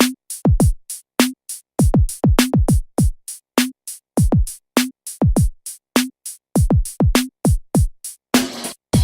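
Drum machine beat from a Native Instruments Maschine Studio: a fast pattern of deep 808-style kicks that slide down in pitch, with short mid-pitched hits and crisp hi-hat ticks. About eight and a half seconds in, a fuller, noisier layer joins the beat.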